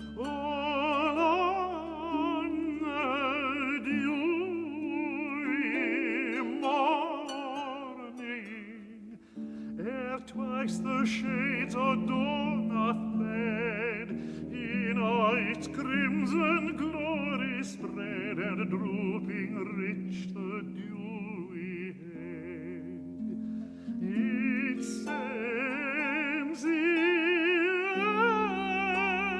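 Classical art song: a tenor voice singing a slow, lyrical line with wide vibrato, accompanied by harp arpeggios and ringing low notes, with a short breath-pause about nine seconds in.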